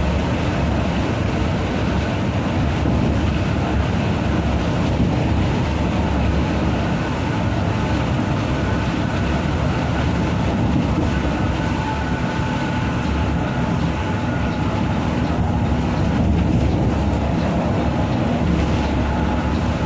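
Steady engine and road rumble heard inside a bus cruising at highway speed, with a few faint steady tones over a continuous low roar.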